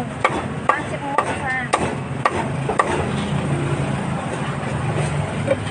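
A cleaver chopping grilled meat on a chopping board: about six sharp chops roughly half a second apart, stopping about three seconds in, over a steady low street hum.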